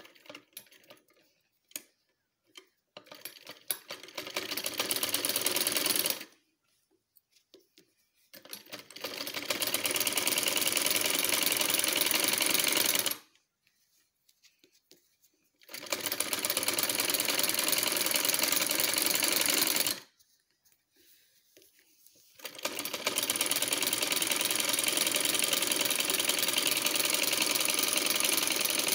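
Black straight-stitch sewing machine running in four steady stitching runs with short pauses between them as it sews a seam a presser-foot's width in from the edge of a shirt collar band. A few light clicks come before the first run.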